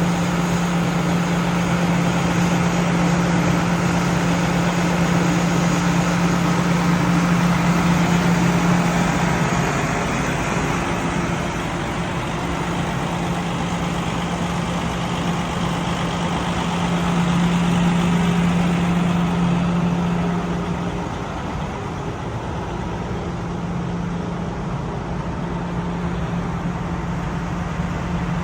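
Motor vehicle running with a steady low engine hum over even road or engine noise, swelling slightly and easing off a couple of times.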